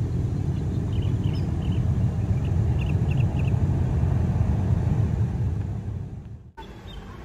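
Twin-engine jet airliner's engines running as it rolls along the runway: a loud, deep rumble that builds, peaks and then fades, cut off suddenly about six and a half seconds in.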